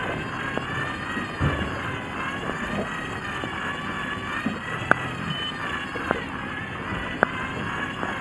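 A motor running with a steady whine whose pitch wavers slowly up and down, over wind and water noise, with a few sharp clicks in the second half.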